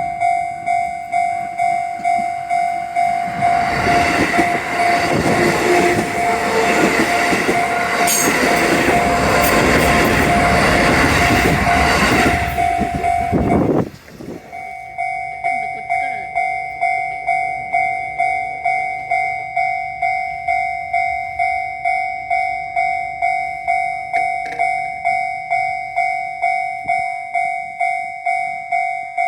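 Japanese level-crossing warning bell ringing in a steady electronic clang of about one and a half strikes a second, while a Shin-Keisei Line train runs over the crossing from a few seconds in until about halfway. The bell breaks off for under a second just as the train noise ends, then rings on.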